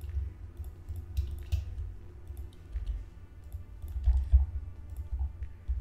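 Computer mouse clicks and keyboard key presses picked up by the desk microphone, with uneven low thumps and rumble; the loudest thump comes about four seconds in.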